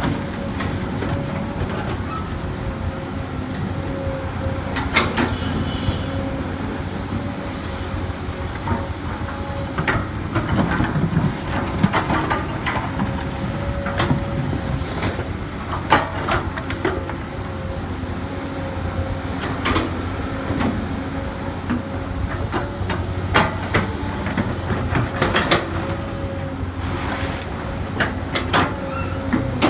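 Komatsu PC200 hydraulic excavator working: its diesel engine runs steadily with a constant whine over a low rumble, and irregular sharp clanks and knocks sound every second or two as it digs and moves soil.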